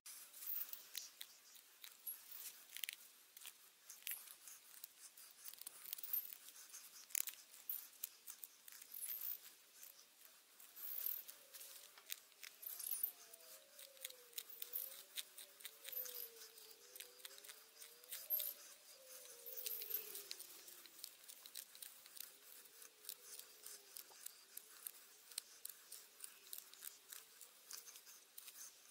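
Knife whittling a fresh-cut branch into a spoon blank: a steady run of short, quick shaving cuts, each a sharp little scrape of the blade through wood.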